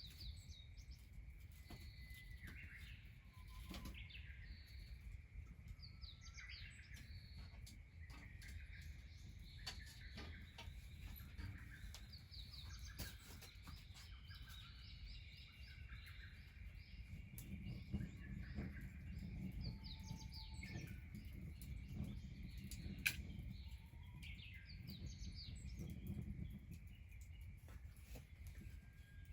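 Small birds chirping and calling again and again, faint, over a low rumble that swells in the second half. A few sharp clicks are scattered through it, the loudest about two-thirds of the way in.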